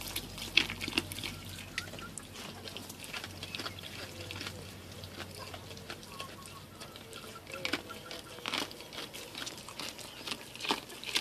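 Goat feeding with its muzzle in a metal basin of water: irregular wet splashing and clicking.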